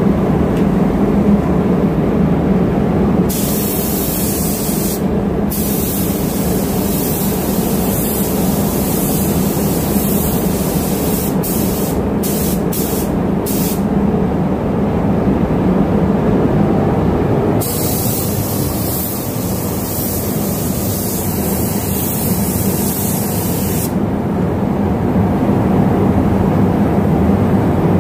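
Gravity-feed spray gun hissing as it lays a thin colour coat of paint: a long pass about three seconds in, several short trigger bursts around twelve seconds, then another long pass of about six seconds. Under it runs a steady low drone.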